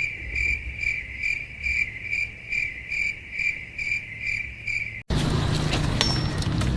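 Cricket chirping: a high, pitched chirp repeating evenly, about two to three a second. About five seconds in it cuts off abruptly to a dense noisy background with scattered clicks.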